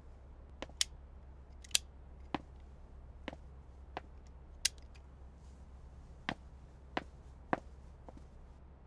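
A dozen or so short, sharp taps and clicks at uneven intervals, over a faint steady low hum.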